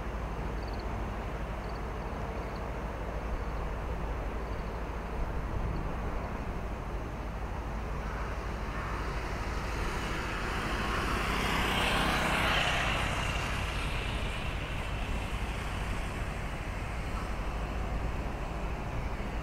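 A road vehicle passing close by, its tyre and engine noise swelling to its loudest about twelve seconds in and then fading, over a steady low outdoor rumble.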